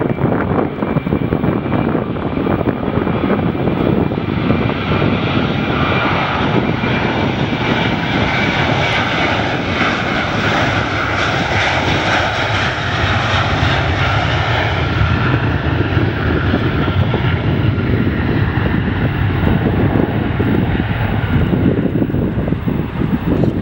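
Jet airliner engines passing by, a steady rushing noise with a thin whine that swells to its loudest about halfway through and then fades. A low rumble of wind on the microphone runs underneath.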